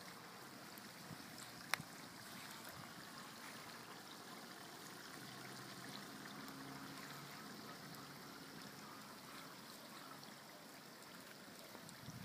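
Chopped onions frying in oil in a cauldron over a wood fire: a faint, steady sizzle, with one sharp click about two seconds in.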